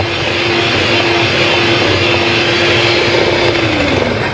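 Electric hand mixer running at a steady speed, its beaters whipping a ghee, sugar and egg-yolk paste in a stainless steel bowl. Near the end it is switched off and the motor winds down, its pitch falling.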